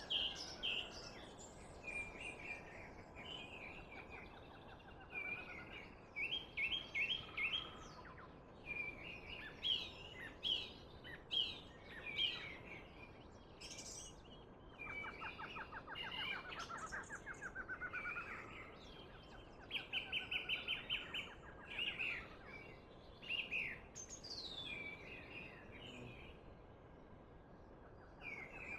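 Several birds singing and calling, overlapping: quick runs of repeated chirps and rapid trills, one after another, over a faint steady background hiss.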